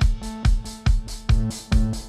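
Background music with a steady drum beat, about two and a half beats a second, over sustained pitched notes.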